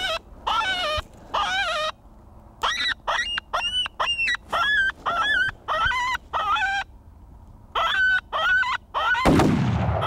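Coyote-style yelping and whining distress cries, high and wavering, about two to three a second in runs broken by pauses of about a second. Near the end, a loud rushing burst of noise is the loudest thing heard.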